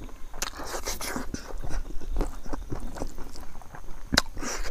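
Close-up mouth sounds of a person chewing rice mixed with pickle, along with fingers squishing and scraping rice on a plate. The sound is a run of small wet clicks, with one sharper click about four seconds in.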